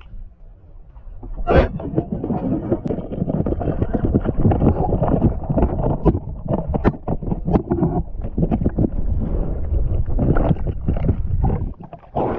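Underwater, a speargun fires with a sharp crack about a second and a half in, then a speared snapper thrashes on the spear, churning the water with a dense run of knocks and rushing noise that cuts off near the end.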